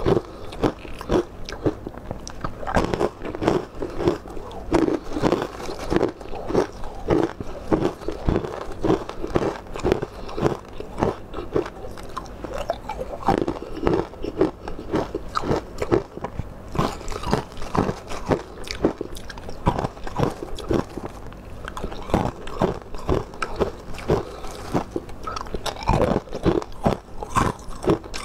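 A person eating crunchy food close to the microphone: rapid, repeated crunching bites and chewing, several crunches a second.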